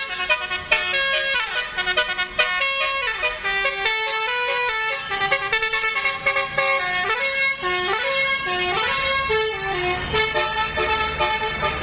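Bus 'telolet' horn, a multi-tone musical air horn, playing a melody of quick stepped notes that run up and down.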